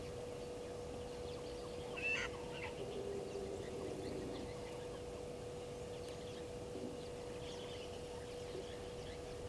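A blacksmith lapwing's short, sharp call about two seconds in, followed by lower, softer calls and faint scattered chirps, over a steady hum.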